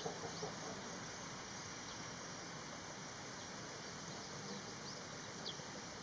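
Steady outdoor background hiss with a few faint, brief high bird chirps, the clearest near the end. A short run of low pulsed calls comes right at the start.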